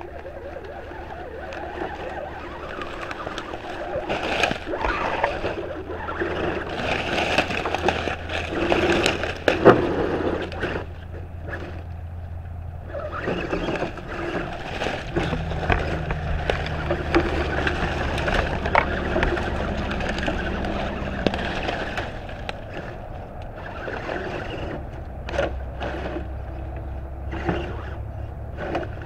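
Electric RC crawler truck creeping through brush: a low hum from its motor and gears, with dry leaves and twigs crackling and snapping under its tyres. The hum steps to a different pitch about halfway through as the throttle changes.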